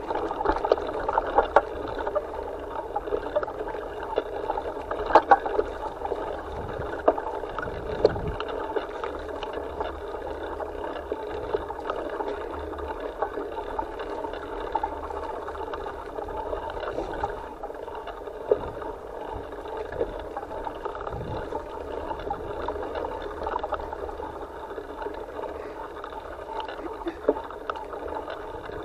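A bike riding a bumpy dirt trail, heard through a handlebar-mounted camera: a steady muffled rumble with scattered knocks and rattles from the bumps.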